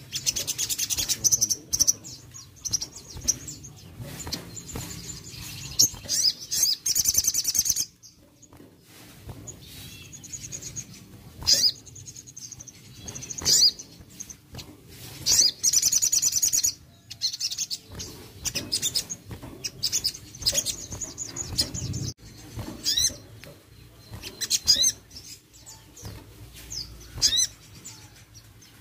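Sunbird (sogon) calling in a cage: bursts of rapid high chirps and fast trills, broken by short sharp notes, with wing flutters as it moves between perches.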